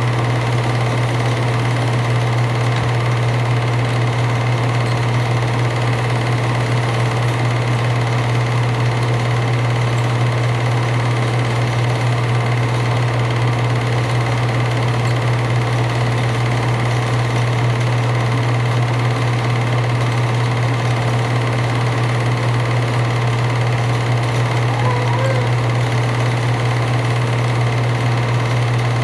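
8mm film projector running: a steady mechanical whirr over a strong, constant low hum.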